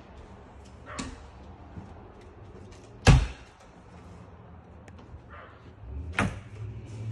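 Doors being handled: a light knock about a second in, a heavy thud about three seconds in, and another sharp knock near six seconds, as doors are swung open and shut.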